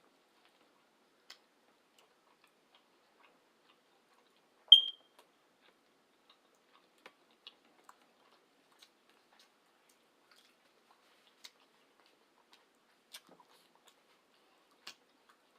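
Quiet eating sounds: scattered faint mouth clicks and smacks from chewing, about one a second. About five seconds in there is a single sharp, ringing clink.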